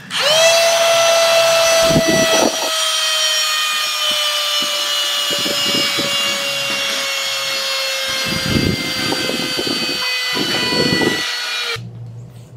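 Handheld vacuum cleaner switched on: its motor spins up to a loud, high whine with many overtones, the pitch easing down slightly, with a few bursts of rubbing noise along the way. It switches off about a second before the end.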